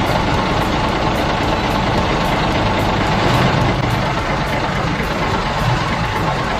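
Heavy vehicle engine running steadily at a low, even pitch.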